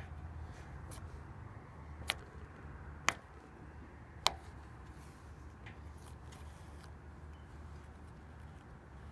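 Clay-based butter slime being stretched and worked by hand, giving three small sharp pops or clicks about a second apart and a few fainter ticks. It is thick butter slime, so the pops are few.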